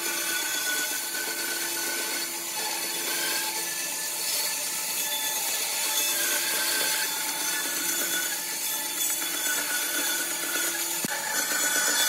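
Bandsaw running and cutting a curve through a thick softwood tabletop: a steady hiss of the blade in the wood over a constant motor hum.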